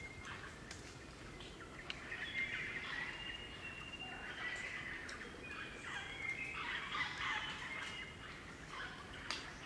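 A group of crimson rosellas chattering and calling, with squeaky notes and a few short held whistles. The calls are busiest about two seconds in and again from about four to eight seconds.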